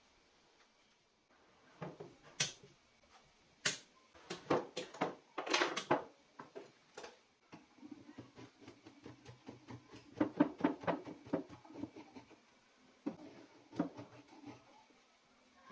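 A few sharp knocks and clatters of wood being handled, then a steel bench chisel pared in short strokes along the edge of a glued-up plywood block, scraping off dried glue.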